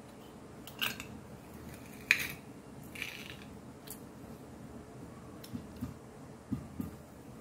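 A few scattered clicks and taps of hands handling a stainless steel dish, the sharpest about two seconds in, with softer low knocks near the end.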